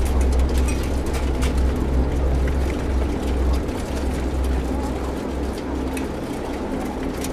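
Steady low mechanical hum of a laying-hen barn, with scattered short calls and clicks from many caged hens over it.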